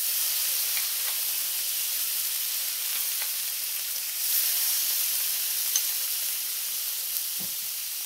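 Garlic butter marinade (melted butter, garlic and olive oil) sizzling on a hot ridged grill pan as it is spooned on. The sizzle swells about four seconds in and drops sharply at the very end.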